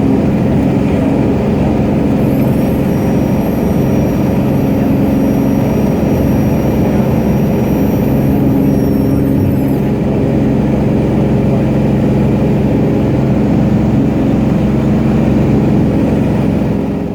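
Cessna 210 Centurion's six-cylinder piston engine and propeller droning steadily during the climb out after takeoff. A thin high whine starts about two seconds in and stops about eight seconds later.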